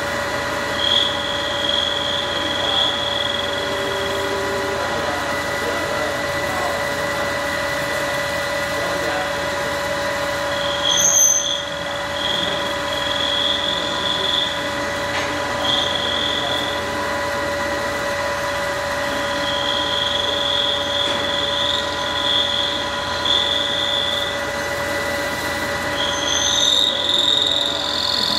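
Manual metal lathe turning the outside diameter of a workpiece under a deep cut. A steady machine whine comes from the drive, and a high squeal from the cutting tool comes and goes in stretches of a few seconds.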